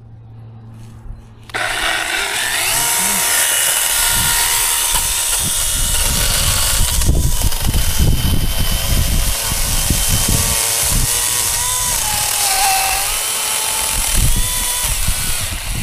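Electric chainsaw starting abruptly about a second and a half in and running at full speed, cutting into small brush trees. Its whine wavers and dips in pitch near the end under load, and it stops right at the end.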